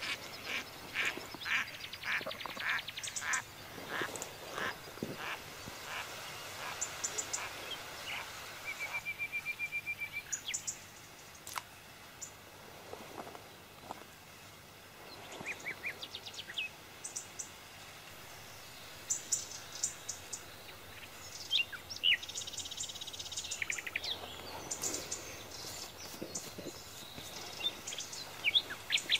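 Birds calling and singing around a marsh pond: trills and quick runs of short, high chirps come one after another, with a denser burst near the end.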